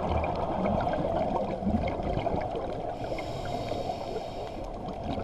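Muffled underwater noise heard through a camera's waterproof housing: a steady dull rushing with faint scattered clicks.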